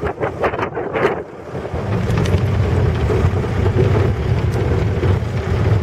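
A vehicle's engine and road rumble heard from inside the cab, steady and low. For the first second, wind gusts buffet the microphone, then the rumble settles in.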